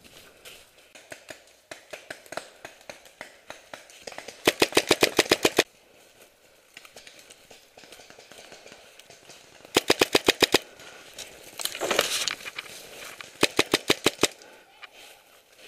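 Paintball marker firing three quick strings of shots, about ten a second, each string lasting around a second. A brief rush of noise comes between the second and third strings.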